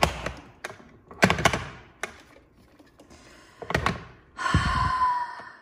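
Hard plastic knocks as a wall-mount landline phone is pushed and worked onto its wall bracket: three sharp knocks, then about four and a half seconds in a second-long scrape with a faint squeak.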